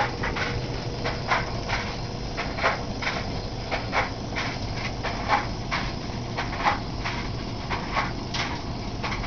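Homemade metal thermoacoustic Stirling engine, with a 50 ml glass syringe as its power piston, running while a blowtorch heats it: a steady low hum with a hiss over it, and irregular sharp clicks about two or three times a second.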